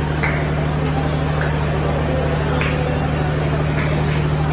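Steady low hum of a stationary passenger train's diesel engine running at idle, under a busy crowd murmur with a few brief calls.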